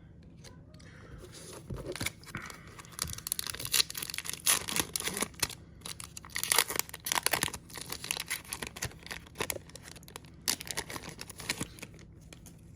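Foil trading-card pack wrapper being torn and crinkled, with irregular crackly rustles that come and go for about ten seconds.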